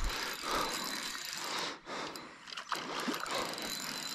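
Fishing reel being wound in against a hooked carp: a steady mechanical whirr with a few small clicks.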